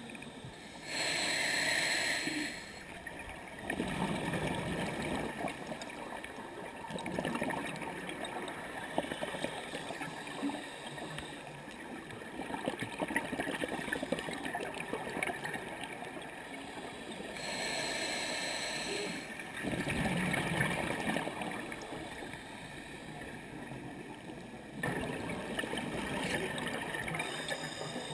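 Scuba diver breathing through a regulator underwater, three breaths: each a hissing inhalation through the demand valve followed by a gurgling rush of exhaled bubbles.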